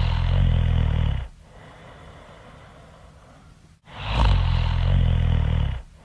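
Loud, deep snoring. A buzzing snore of about a second and a half ends about a second in, a quieter breathy stretch follows, and then the same snore repeats about four seconds in.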